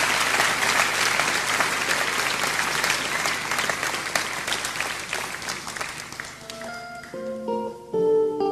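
Audience applause fading out. About six and a half seconds in, an electric guitar starts playing sustained notes in a clean tone.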